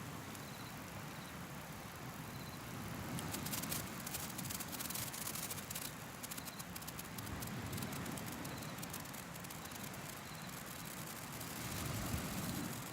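Wood campfire crackling, thickest from about three to nine seconds in, over a steady low rushing wash. Faint short chirps repeat about once a second.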